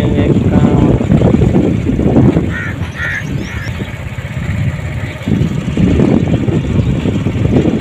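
Motorcycle running on the move, a rough steady low noise, with three short higher-pitched sounds about three seconds in.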